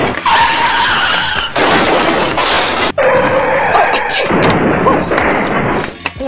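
Car tyres screeching in skids, about five in a row with short breaks between them, fading near the end.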